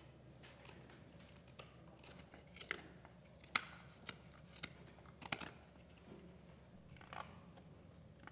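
A few short, sharp clicks and taps, about six in all, the loudest about three and a half seconds in, over a low steady room hum: small objects being handled on a table.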